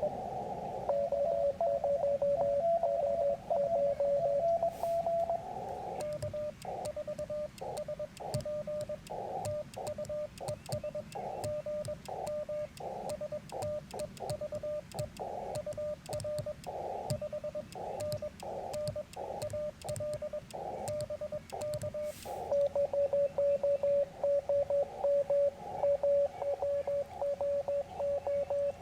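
Morse code (CW) from a Yaesu FT-891 transceiver: a single steady tone of mid pitch keyed on and off in dots and dashes. Through the middle stretch the tones sit in a hiss of band noise; near the start a second signal is heard at a slightly higher pitch.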